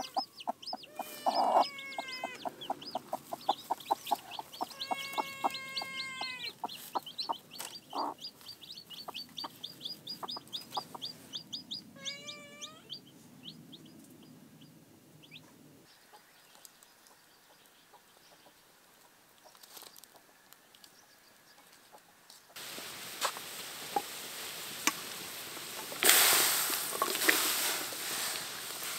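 Chickens clucking and calling in quick, busy runs through roughly the first half. Later comes a quieter lull, then a steady noise that sets in suddenly, with a louder noisy stretch near the end.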